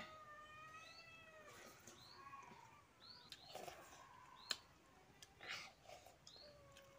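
Faint animal calls over near silence: one long, wavering pitched cry about a second in and several short rising chirps, with a single sharp click a little past the middle.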